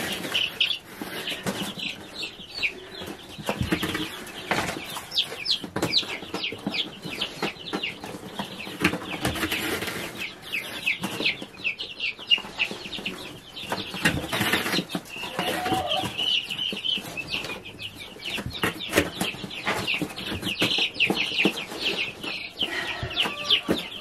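A brood of meat bird chicks, Cornish cross and Western rustic broilers a few days old, peeping constantly: many short high chirps overlapping one another, with scattered knocks and rustles as they are handled.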